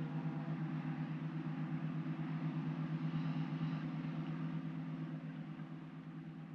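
Motorboat engine running with a steady, rapid throb, fading gradually as the launch moves away.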